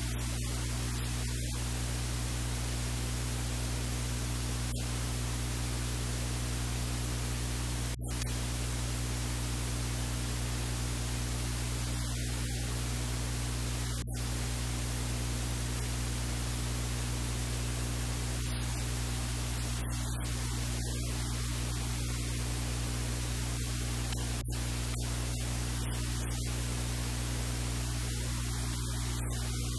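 Steady hiss with a constant low electrical hum, unchanging throughout.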